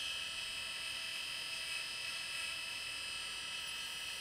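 Lidless old SCSI hard drive spinning its damaged, grooved platter with the heads dragging on the surface: a steady high-pitched whir and hiss, the sound of a head crash that is getting worse.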